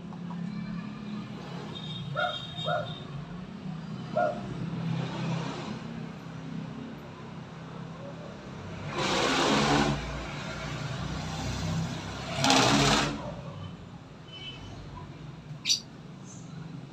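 A dog yelping briefly in the distance a few times over a steady low hum, with two loud rushing noises of about a second each around the middle.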